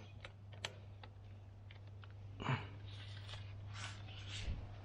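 Hand tools and metal parts handled in an engine bay: faint scattered clicks and a light knock about two and a half seconds in, over a low steady hum.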